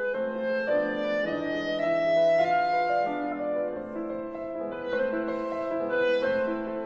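Clarinet and grand piano playing classical chamber music together: a sustained legato clarinet melody that climbs for a couple of seconds and then steps back down, over piano accompaniment.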